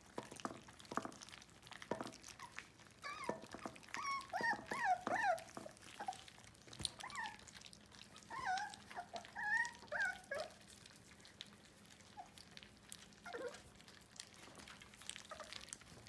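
Puppies whining and squealing in short, high-pitched cries, mostly from about three to ten seconds in, over the clicks and smacks of puppies lapping and chewing soft food from a glass plate.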